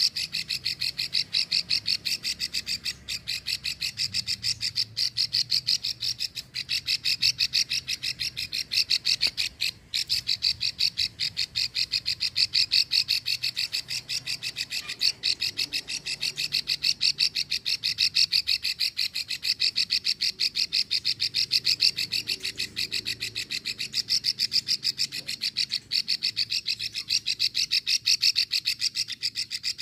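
Female plain prinia (prenjak sawah) giving its long 'ngekrek' call: a fast, even run of sharp clicks, kept up without a break, the chatter keepers play to draw a male to sing.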